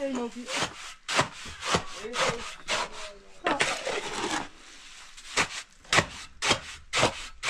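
Saw cutting in uneven back-and-forth strokes, about one to two a second, with a longer run of cutting near the middle.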